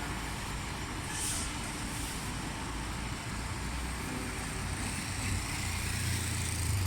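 Low, steady rumble of a motor vehicle's engine running outdoors, growing louder toward the end.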